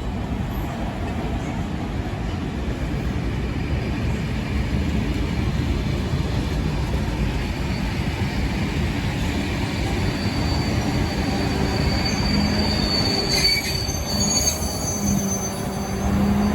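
Steam-hauled passenger train running on the rails: a steady rumble of wheels on track. About ten seconds in, high wheel squeals set in and carry on to the end.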